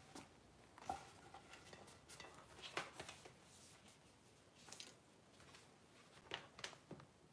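Near silence: quiet room tone with a handful of faint, scattered clicks and light knocks.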